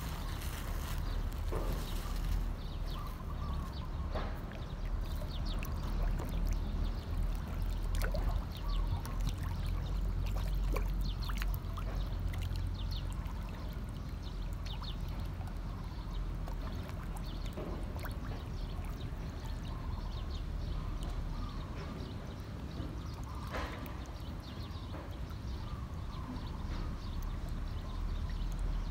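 A crowded school of fish churning and slapping at the water surface, with many scattered sharp splashes and slurps over a steady low rumble.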